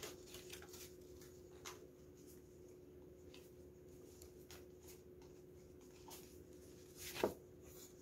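Quiet room tone with a steady hum and a few faint ticks, then, about seven seconds in, a brief rustle as a stiff paper card is handled.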